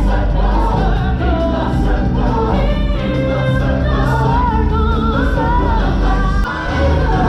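Live stage-show music: a choir of voices singing over a band accompaniment, with a short dip about six and a half seconds in.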